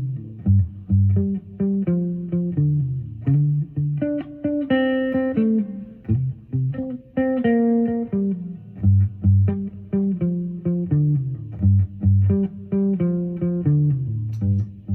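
Epiphone Sheraton semi-hollow electric guitar playing a slow blues in G. A repeating low bass-note figure runs under it, and single-note lead phrases with held, bending notes come in the middle.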